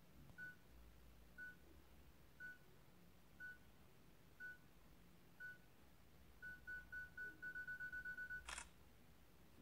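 Samsung Galaxy S10e camera self-timer beeping faintly, once a second, then faster and faster over the last two seconds of the countdown. The phone's camera shutter sound follows as the photo is taken.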